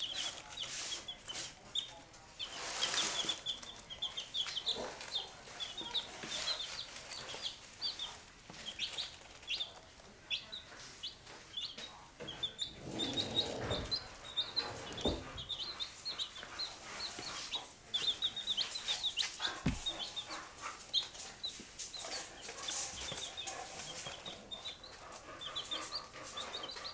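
Baby chicks peeping: quick runs of short, high cheeps that go on throughout, with occasional soft rustling.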